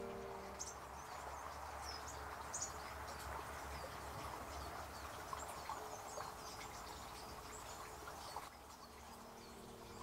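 Faint woodland ambience: small birds giving short high chirps and calls again and again, over a soft steady rush of a small stream.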